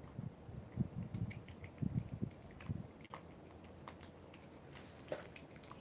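A cat licking and smacking at a lickable treat squeezed from a tube: rapid, irregular wet clicks, with a few dull low thumps in the first three seconds.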